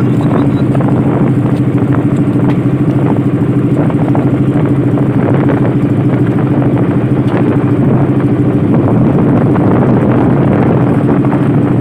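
Engine of a motorized bamboo outrigger boat running steadily at constant speed, a loud even drone with no change in pitch.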